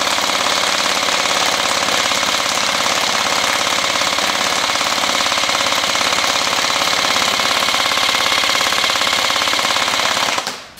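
A&K full-metal M60VN airsoft electric gun (battery-driven AEG) firing one long continuous full-auto burst, a fast even rattle of the gearbox cycling that stops shortly before the end.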